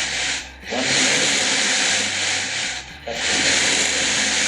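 Metal slinky coils sliding and rubbing along the surface as longitudinal pulses are sent down it and reflected back: a steady rasping hiss in long stretches that breaks off briefly twice, once for each fresh pulse.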